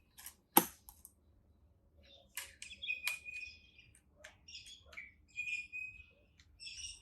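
Handling clicks from a medium format folding camera being worked at: one sharp click about half a second in, then a string of small clicks and short high chirps.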